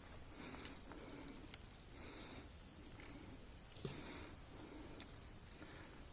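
Insects calling: a steady high trill, joined from about two seconds in by a second insect's quick, evenly spaced chirps, over faint rustling and a couple of light clicks.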